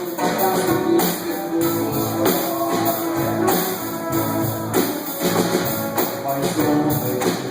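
Band playing an instrumental stretch of a pop-rock song: strummed guitar over a steady drum beat, with no singing.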